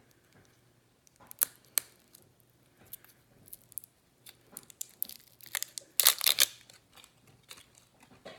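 Hands unwrapping and opening a small bottle of rose multi-use face oil: a run of sharp clicks and plastic crinkling, with a louder rasping tear of the plastic packaging about six seconds in.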